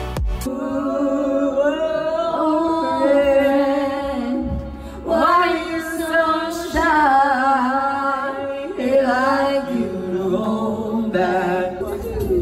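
A group of amateur singers performing karaoke together into handheld microphones, their amplified voices singing a melody in unison.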